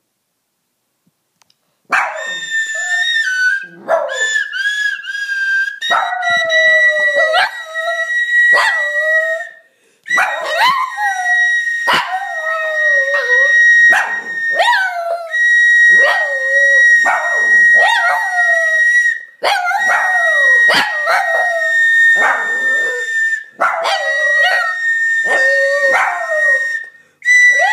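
A plastic recorder plays high notes, short changing ones at first and then long held ones, while a small long-haired dog howls along to it in wavering, sliding howls. Both start about two seconds in.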